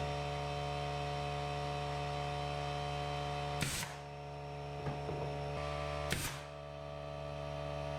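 A steady electrical hum made of several fixed tones, with a short click about three and a half seconds in and another about six seconds in.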